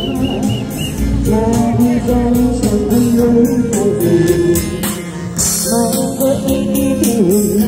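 Music with singing over a fast, steady percussion beat.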